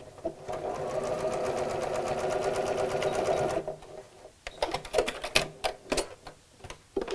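Janome Memory Craft computerized sewing machine stitching at a steady speed for about three and a half seconds, then stopping. A run of irregular clicks and taps follows.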